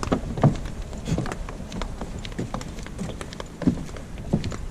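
Footsteps on the wooden plank deck of a cable suspension footbridge: uneven knocks and clunks of boards under two people walking.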